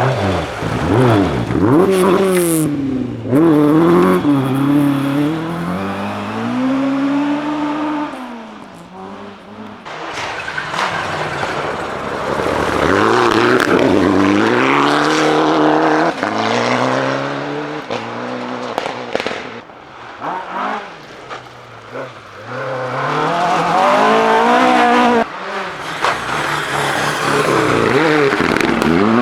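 Rally car engines at speed, revving up and dropping back again and again with the gear changes as the cars pass, loudest in several separate passes.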